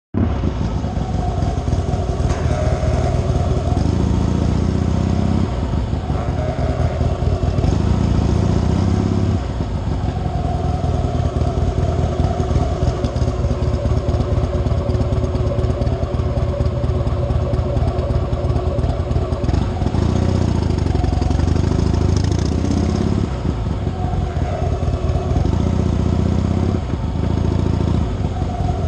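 2012 Harley-Davidson Heritage Softail Classic idling, with a weird noise from below the gas tank coming in several spells of a few seconds each as the front brake lever is pressed hard; the owner has been told it may be the ABS control unit.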